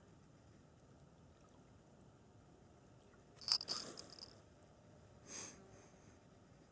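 Small metal bite-alarm bell clipped on the fishing line jingling briefly, twice, about three and a half and five and a half seconds in, the first louder: a fish tugging the bait, which the angler puts down to gobies.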